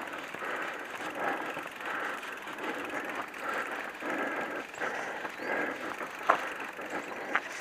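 Mountain bike rolling along a dirt forest trail: uneven tyre-on-dirt noise, with a couple of sharp clicks near the end.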